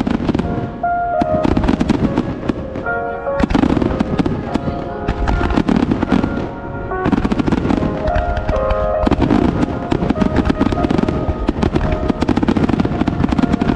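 Fireworks bursting with dense, rapid crackling and popping, with music playing underneath. The sound changes abruptly a few times.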